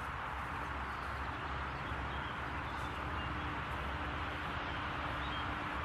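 Steady outdoor background noise with a low rumble and a faint steady hum, like distant traffic, with a few faint bird chirps.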